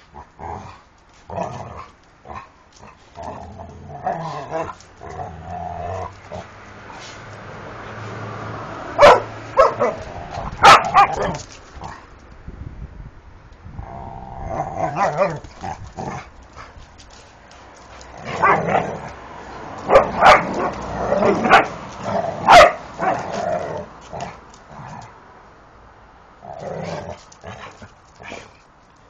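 Two dogs playing rough with each other, growling, with loud barks in two bunches, about a third of the way in and again about two-thirds through.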